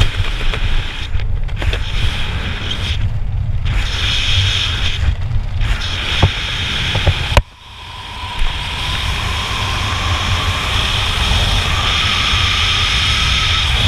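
Wind rushing and buffeting over a GoPro's microphone during a skydive, a steady low rumble with gusty swells. About halfway through a sharp click is followed by a sudden brief drop in the noise before it builds back, with a faint thin whine slowly rising in pitch underneath.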